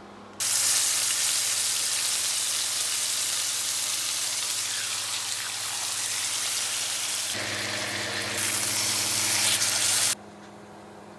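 Steak frying in a hot pan, a loud steady sizzle that starts suddenly about half a second in, changes character about two-thirds of the way through and cuts off suddenly near the end. A steady low electrical hum runs underneath.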